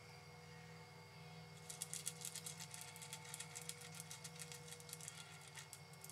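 A white-tailed buck feeding at a corn feeder: a fast, irregular run of crisp crunching clicks starts about two seconds in and lasts about four seconds, over faint steady insect trilling.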